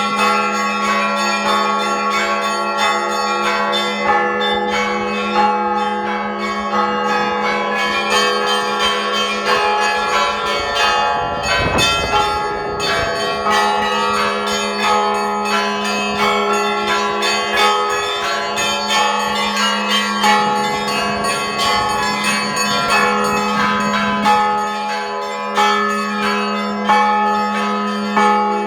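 Russian church bell-ringing (zvon): several bells struck in quick, busy patterns over a steady deep hum, with a heavier low stroke about twelve seconds in.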